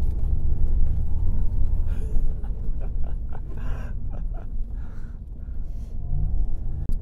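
Steady low rumble of a GMC Hummer EV's tyres and suspension running over a rough, frozen ice surface.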